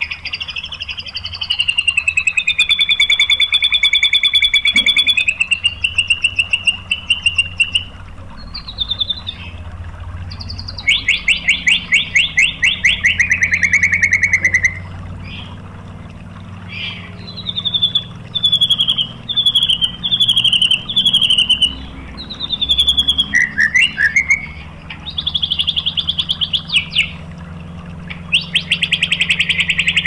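White-rumped shama singing: long clear whistles gliding in pitch, rapid-fire trilled bursts (the 'tembakan' phrases), and a run of short, quickly repeated falling notes.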